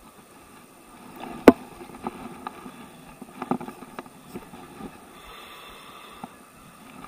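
Handling noise close to the microphone while a fishing pole is held under load. One sharp knock comes about one and a half seconds in, followed by a scatter of smaller clicks and knocks over a faint steady hiss.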